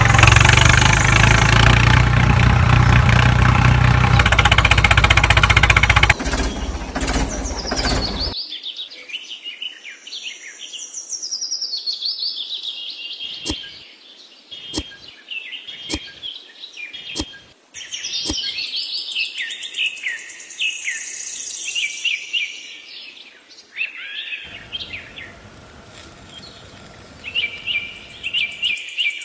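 Songbirds chirping and calling in quick, repeated phrases, with a few sharp clicks around the middle. Before that, a loud steady noise with a deep hum cuts off suddenly about a quarter of the way in.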